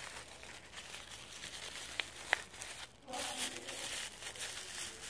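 Paper crinkling and rustling as hands crumple and work a wad of paper, with two sharp little clicks about two seconds in.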